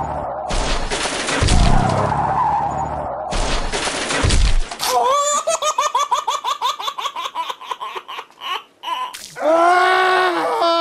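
Dubbed sound effects: a rough rumbling noise in two surges, then about halfway through a rapid high-pitched giggling laugh, about four to five bursts a second, ending in a long drawn-out cry near the end.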